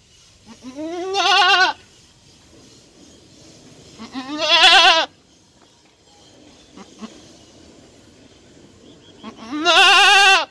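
A goat bleating three times, each call about a second long, rising in pitch at the start and then wavering.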